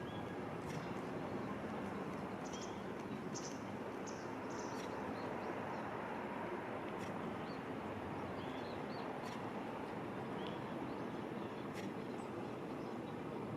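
Small birds giving short, high call notes, about ten of them scattered through, over a steady background hum.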